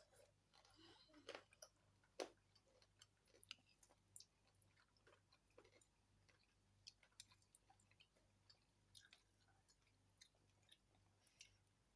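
Faint close-up eating sounds: a person chewing spicy food, with soft, irregular mouth clicks and smacks, two louder ones around one and two seconds in, over a faint low hum.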